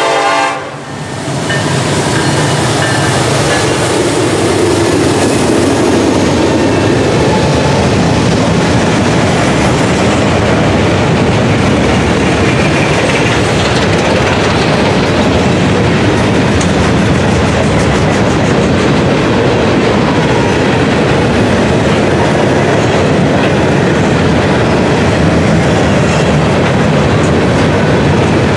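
A diesel freight train passing close by. A Norfolk Southern EMD SD70ACE locomotive's horn cuts off about half a second in. The locomotives' engines then go by, and a long string of gondola cars follows, rumbling steadily with the clickety-clack of wheels over rail joints.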